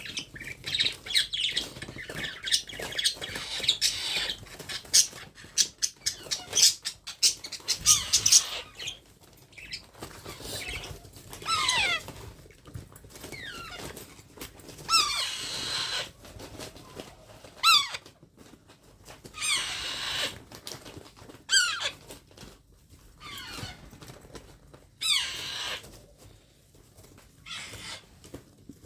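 A baby parrot giving harsh squawks and short calls that slide downward in pitch, repeated every few seconds. Scratchy rustling and clicks fill the first several seconds.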